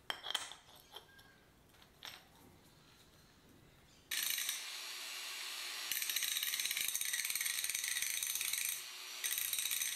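A few clicks as an abrasive disc is fitted to an angle grinder, then about four seconds in the grinder starts up and grinds rust off the cast-iron body of a charcoal iron, a loud, hissing grind. It lightens briefly twice.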